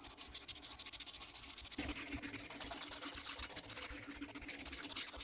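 Abrasive paper rubbed back and forth by hand on the metal rim of a miniature sewing machine's handwheel, sanding off the old paint. It makes a fast, even scratching that gets a little louder about two seconds in.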